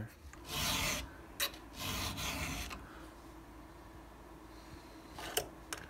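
Round chainsaw file rasping across a chain's cutter tooth in a roller filing guide: two strokes in the first three seconds, with small metal clicks after them and again near the end.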